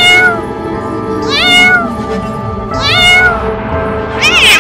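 A cat meowing four times, about one and a half seconds apart, each call rising then falling in pitch, the last one higher. Background music runs underneath.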